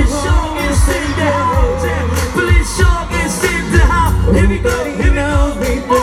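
Live pop song played through outdoor stage speakers: a male singer's vocal melody over an amplified backing band with a heavy, pulsing bass beat.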